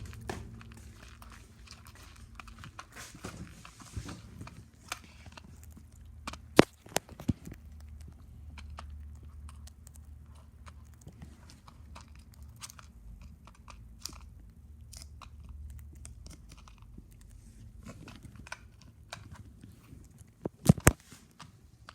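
A bird eating from a food pan: irregular crunching and pecking clicks. A few louder sharp knocks come about six to seven seconds in and again near the end.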